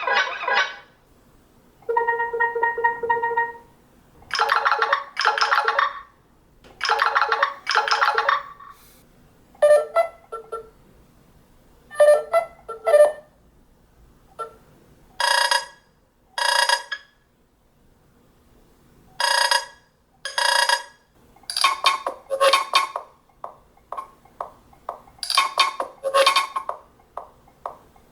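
Nothing Phone (2) ringtones playing one after another: short electronic chime and bleep phrases, several played twice in a row, with brief pauses between them.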